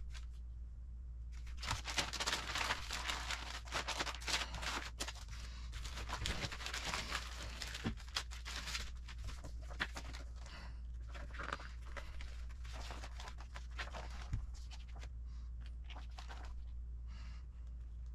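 Clear plastic bag crinkling and rustling as it is handled and opened, densest in the first half and thinning to occasional crackles of plastic and paper as a folded instruction booklet is spread out. A low steady hum runs underneath.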